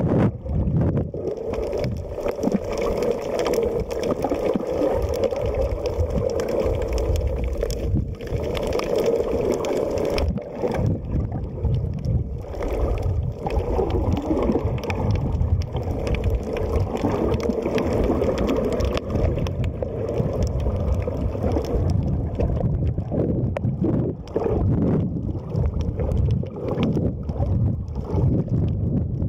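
Muffled, steady water noise picked up by a camera held underwater, an uneven low rush with a few brief dips.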